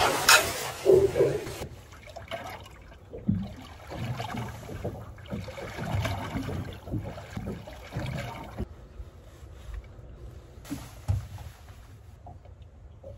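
Water lapping and sloshing against the hull of a small boat, with irregular low knocks. A brief rushing hiss in the first second or so is the loudest part.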